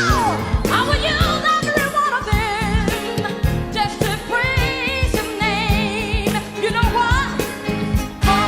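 Pop/soul song playing, a vocal with wide vibrato over a steady beat and bass line.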